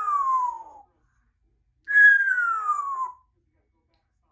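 Congo African grey parrot whistling: a long falling whistle tails off under a second in, and a second long falling whistle follows about two seconds in.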